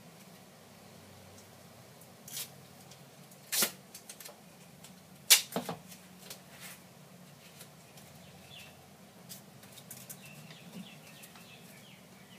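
Sandpaper and duct tape being handled while the sheet is stretched and taped onto a trowel: a few short, sharp rustles and snaps, the loudest about five seconds in, then faint crinkling.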